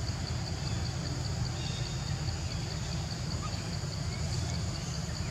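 Insect chirping in a steady, rapid pulse of about five chirps a second, over a constant low rumble.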